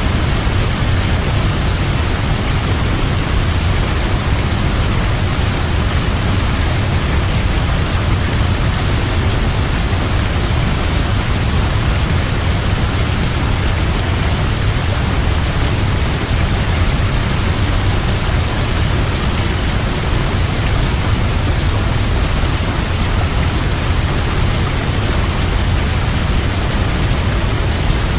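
Large waterfall: a steady, heavy rush of falling water with a deep low rumble underneath, unchanging throughout.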